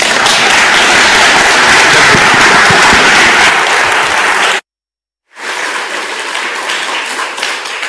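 Audience applauding in a hall, loud and steady. About halfway through the sound drops out to silence for about half a second, then the applause comes back quieter.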